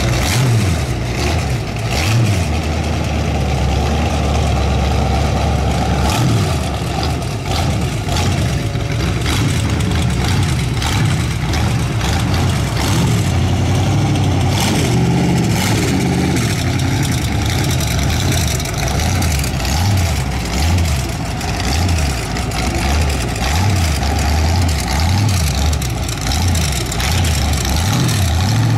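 Engine of a 1929 roadster pickup hot rod running as it pulls away and drives past, its pitch rising and falling several times with the throttle.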